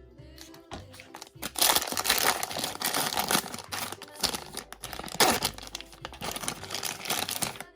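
Plastic packaging crinkling and rustling as a toy capsule's contents are unwrapped, from about a second and a half in, over background music.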